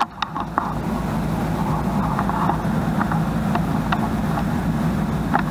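Automatic bowling pinsetter machinery running steadily: a continuous low mechanical drone with scattered light clicks and knocks, and a sharp click right at the start.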